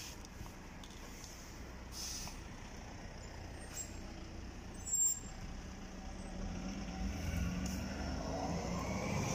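City bus engine running at a stop, with a short air-brake hiss about five seconds in. The engine then rises as the bus pulls away and passes close by.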